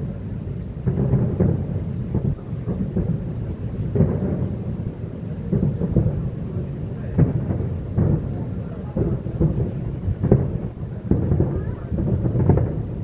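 Distant aerial fireworks shells bursting in quick succession: a continuous low rumble of booms with sharper bangs every second or so.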